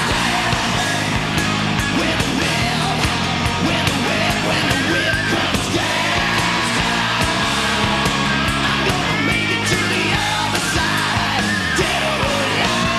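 Hard rock song: distorted electric guitars over a drum kit, with gliding pitched lines that may be guitar bends or vocals.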